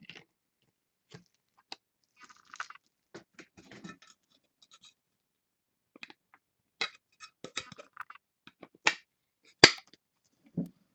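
Trading cards being handled: scattered light rustles and clicks as cards are shuffled and slid, with two sharper clicks late on and a soft thump just after.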